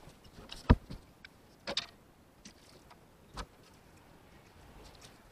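A few scattered knocks and thumps as someone moves about and handles things at the cloth seat of a pickup's cab: a sharp one just under a second in, a couple more near two seconds, and one about three and a half seconds in.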